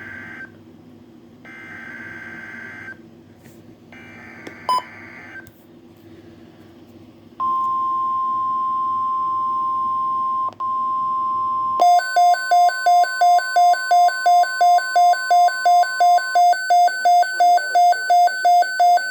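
Emergency Alert System activation on NOAA Weather Radio: the shrill, buzzy data bursts of the SAME header, each about a second and a half long, then the steady warning alarm tone for about four seconds. About twelve seconds in, a louder pulsing alert beep starts, about two and a half beeps a second.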